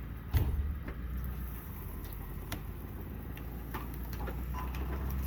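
A vehicle engine running at a low idle, with one sharp knock about half a second in and a few lighter clicks and taps.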